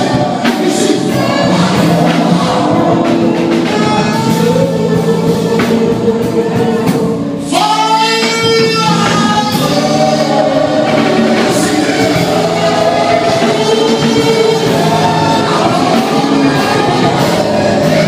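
A church congregation singing a gospel worship song, many voices together holding long notes. After a brief dip about eight seconds in, one strong voice with a wavering tone rises above the group.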